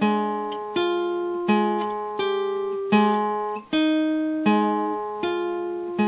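Acoustic guitar playing an instrumental: plucked chords struck about every three-quarters of a second, each ringing and fading. The sound drops out briefly a little past halfway.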